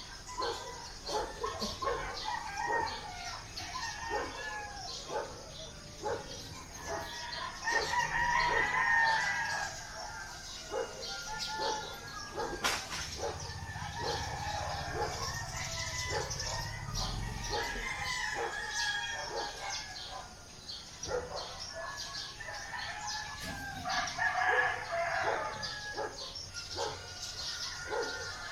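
Roosters crowing several times, with the loudest crows about eight seconds in and again near the end, over a constant scatter of short clucks and chirps from the flock. A single sharp click sounds about halfway through.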